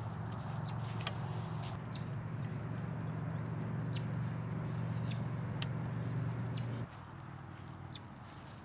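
Scattered short, high bird chirps over a steady low rumble; the rumble cuts off suddenly about seven seconds in.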